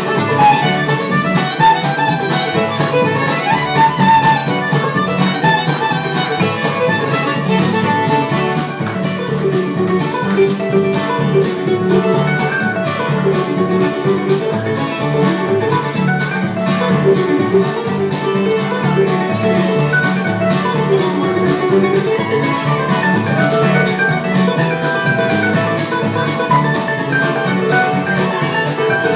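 Live bluegrass band playing a tune: fiddle, mandolin, acoustic guitar, upright bass and drums, with a steady beat.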